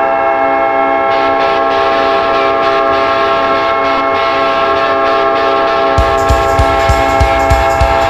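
Winnipeg Jets arena goal horn: a multi-tone air horn held as one long steady chord. A song's drum beat comes in under it about six seconds in.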